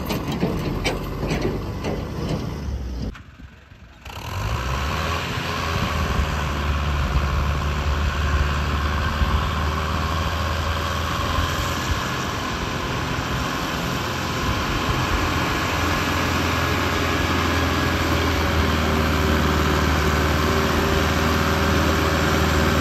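Sonalika tractor's diesel engine running steadily while it pulls a trolley heaped with soil through soft, sandy ground. The sound drops out briefly about three seconds in.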